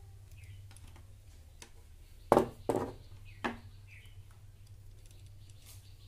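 A screwdriver and a plastic switch box being handled on a wooden table: three sharp knocks within about a second, a little over two seconds in, among a few faint ticks, over a low steady hum.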